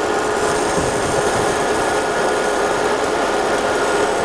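Fiber laser marking machine running as it engraves a drink can: a steady, even hiss with a constant hum over it.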